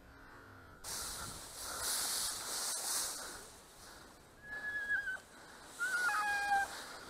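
Rustling hiss for about three seconds, then several short, clear whistles, the first falling slightly in pitch at its end.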